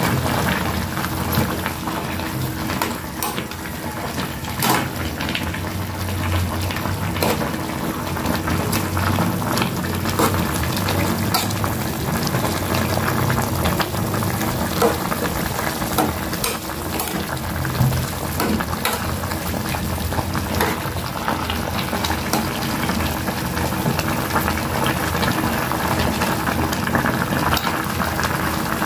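Pot of vegetable soup bubbling at a steady boil, with scattered clicks and scrapes of a metal spoon against the steel pot as the vegetables are stirred.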